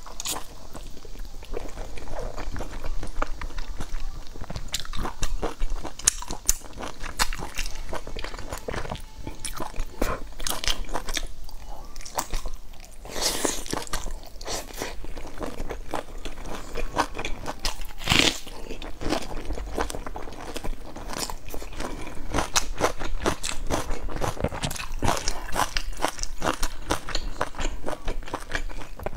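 Close-miked biting and chewing of a crusty stuffed flatbread: a steady run of crackly crunches, with louder bites about 13 and 18 seconds in.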